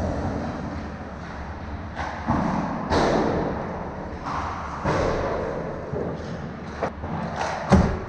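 Ice hockey skates scraping and carving on the ice, with several sharp knocks of puck and stick in the last couple of seconds; the loudest is a hard thud near the end.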